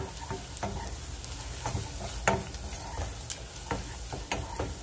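Wooden spoon stirring bacon, onions and flour in a ceramic-coated saucepan, scraping and knocking against the pan several times over a steady sizzle: the flour cooking in the bacon fat and butter to make a roux.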